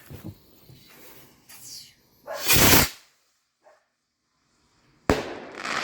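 A skyrocket fired off: a short, loud hiss of the launch a little over two seconds in, then a sharp bang about five seconds in as it bursts, with a brief fading tail.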